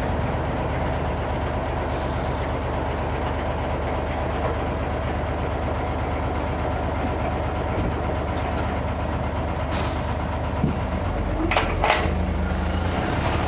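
Diesel engine of a Hino ten-wheel dump truck idling steadily. A few short hisses come about ten and twelve seconds in, and near the end the engine note changes as the truck moves off from its uncoupled trailer.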